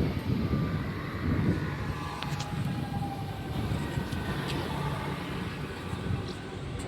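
Rodalies de Catalunya electric commuter train running along the track: a steady low rumble of wheels on rail, with faint high whining tones in the middle and a few light clicks.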